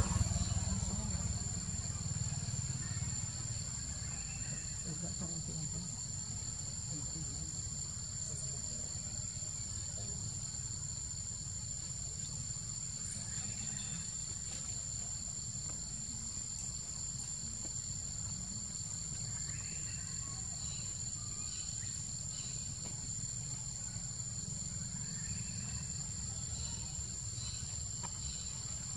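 Steady, high-pitched drone of insects, two held pitches running on unbroken, over a low rumble that eases off after the first few seconds.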